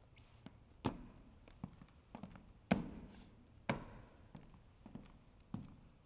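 Hard-soled shoes stepping on a stage floor: sharp, uneven footsteps with a short ring, the loudest about a second apart, with lighter taps between.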